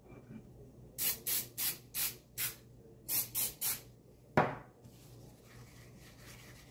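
PAM Baking aerosol cooking spray hissing in short bursts to grease ramekins: five quick sprays, a brief pause, then three more. A single knock follows about four seconds in.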